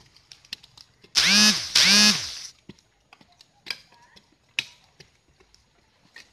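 Chainsaw revved twice in quick succession, each rev holding briefly and then dying away, with faint scattered knocks before and after.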